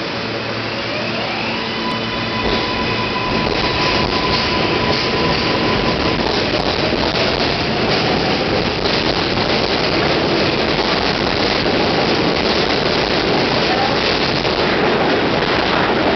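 Kawasaki R143 subway train pulling out: the traction motors' whine climbs in pitch over the first few seconds, then the rumble of wheels on the rails builds and carries on steadily as the cars roll past.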